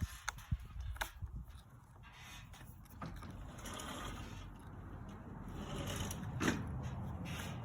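Screws being undone from a solar garden light's plastic housing: a few clicks and knocks, then a steadier grinding noise from about three seconds in, with a sharp click near the end.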